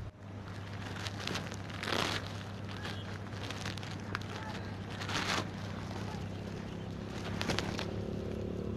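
A few scuffing footsteps of leather riding boots on asphalt, over a steady low hum.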